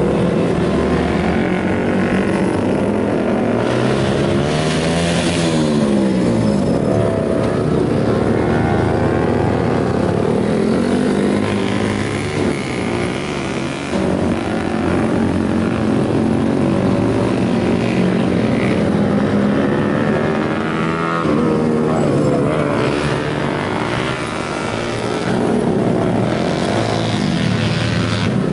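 Yamaha Vixion's single-cylinder four-stroke engine revving up and down repeatedly, its pitch rising and falling in sweeps.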